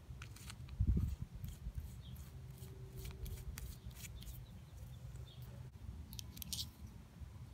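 Faint clicks and scrapes of a JLB Cheetah RC shock's metal cap being threaded by hand onto the oil-filled shock body, then turned tight with a small screwdriver shaft through the cap's eyelet near the end. A dull knock of handling about a second in.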